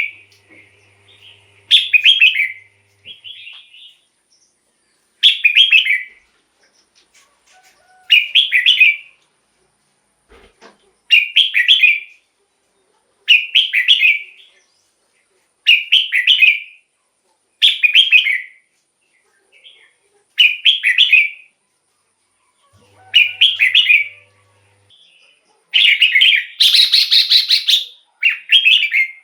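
Red-whiskered bulbul singing: short song phrases repeated about every two seconds, with a longer, louder phrase near the end.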